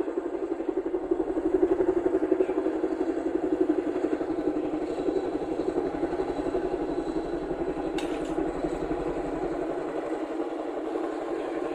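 Boeing CH-47 Chinook tandem-rotor helicopter flying past with a slung load, its rotors beating in a fast, steady thud that slowly grows fainter. A single sharp click comes about eight seconds in.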